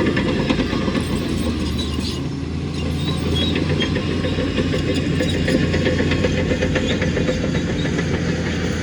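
Shantui bulldozer's diesel engine running steadily under load, with rapid clanking and rattling of its steel crawler tracks.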